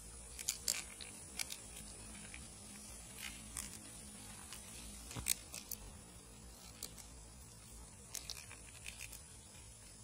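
Faint, irregular clicks and light taps, about a dozen scattered through, over a low steady background.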